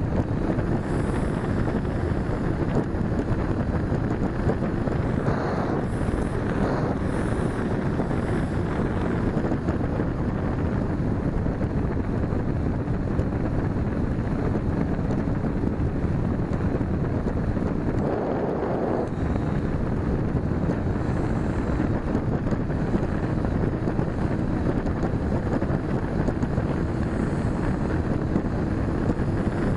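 Steady rush of airflow over a wing-mounted camera's microphone on a Tiha Jeza electric RC glider in flight, with brief louder gusts about six seconds in and again around eighteen seconds.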